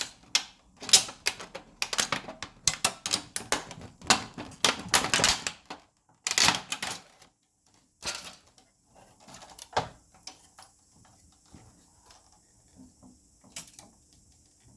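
Parts of a projector being handled and pulled apart: a quick, irregular run of clicks, clatters and knocks of plastic and metal pieces, thinning out to occasional knocks after about six seconds.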